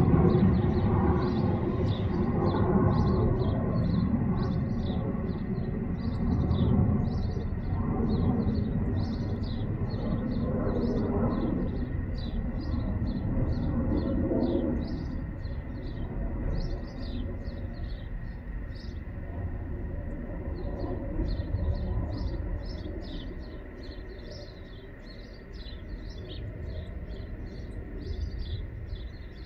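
Distant jet rumble of the Airbus BelugaXL's Rolls-Royce Trent 700 turbofans climbing out after take-off, fading slowly as the aircraft draws away. Small birds chirp in quick repeated calls throughout.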